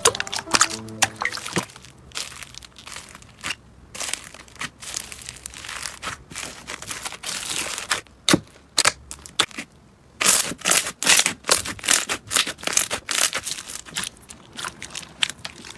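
Slime being squeezed and pressed, crackling and popping in dense runs of small sharp clicks that come thickest past the middle.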